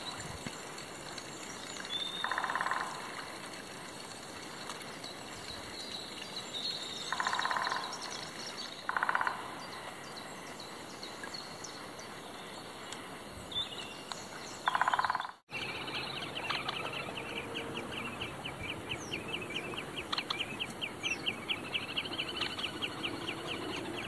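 Great spotted woodpecker drumming: four short bursts of rapid knocks on wood, set among background birdsong. After a sudden break, another bird sings a fast, even run of repeated high notes.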